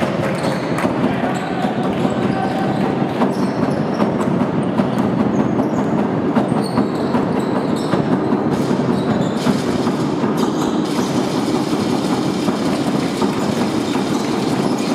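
Basketball arena crowd noise, a loud, steady din, with ball bounces and brief sneaker squeaks from the court over it.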